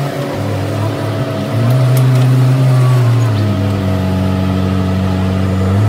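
Small diesel engines of a Bobcat E10 mini excavator and a compact loader working their hydraulics, a steady drone that dips and rises in pitch several times as the load changes.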